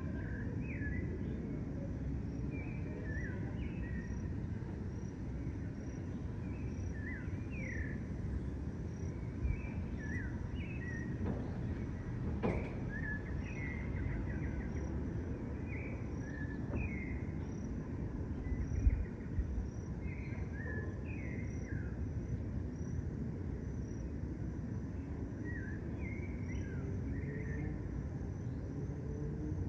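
Park ambience at dusk: small birds give short chirping calls over and over. A faint cricket chirps high up at a steady, regular pace, over a steady low background rumble.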